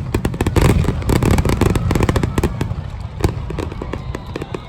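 Fireworks going off in a dense run of rapid crackling pops and bangs, with one louder crack a little past three seconds in and the crackling thinning near the end.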